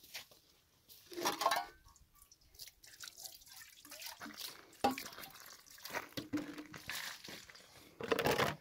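Water splashing and dripping in short, irregular bursts, loudest about a second in and again near the end.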